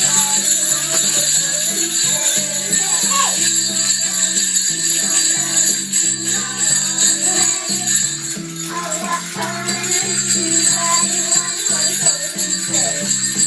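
Sleigh bells shaken in a continuous jingle, with children's voices over them.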